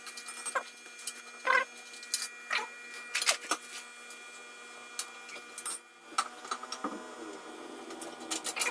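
Hand tools clicking and knocking against metal, in irregular sharp clicks, as the bolts holding a scooter's stock exhaust pipe are undone.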